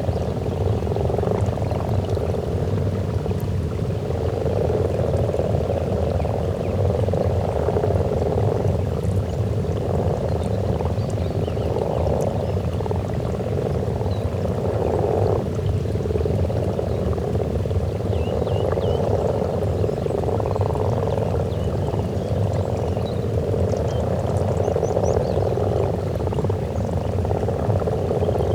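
A breeding chorus of common frogs at their spawning pond: many overlapping croaks forming a dense, continuous sound that swells and eases every second or two.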